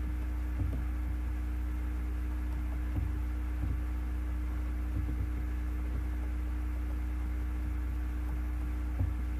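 Steady low electrical mains hum with higher overtones picked up by the recording chain, with a few faint soft taps scattered through it.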